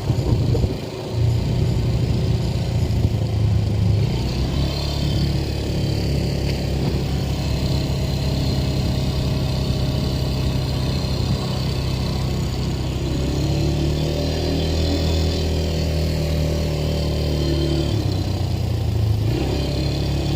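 ATV engine running steadily, its note dipping briefly about a second in and shifting slightly a couple of times later.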